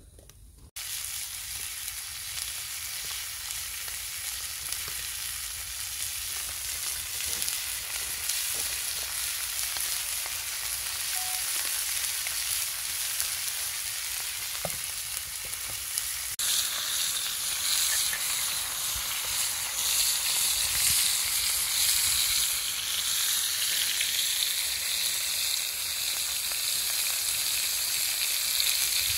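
Pork belly sizzling in its fat on a cast-iron pot-lid griddle over a wood fire: a steady hiss that starts abruptly about a second in and grows louder past the halfway point.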